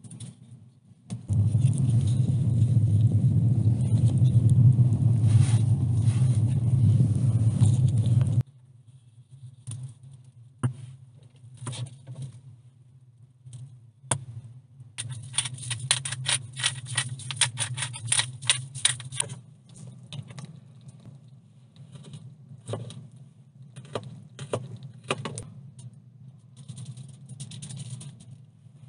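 A loud, steady rushing noise for about seven seconds that cuts off abruptly. Then comes quieter handling, with a salt shaker rattled fast for about four seconds, and aluminium foil rustling near the end.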